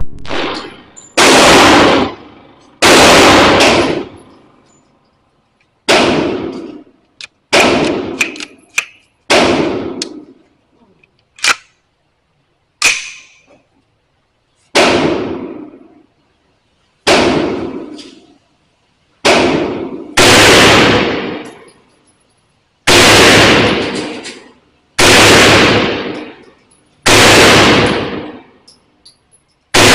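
Semi-automatic gunshots fired one at a time at a slow, steady pace of about one every two seconds, each report ringing out for about a second, with a few lighter sharp clicks between shots.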